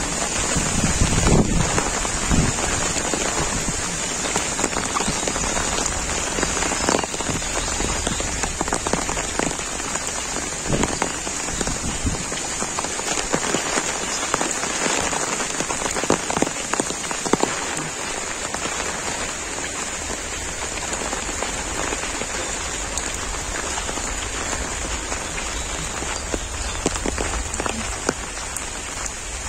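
Heavy monsoon rain falling steadily: a dense, even hiss with many small drop hits, and a brief low rumble about a second in.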